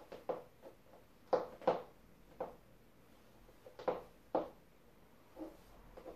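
Stiletto high heels clicking on a laminate floor as the wearer steps and shifts their feet: sharp single taps at irregular intervals, the loudest pair about a second and a half in.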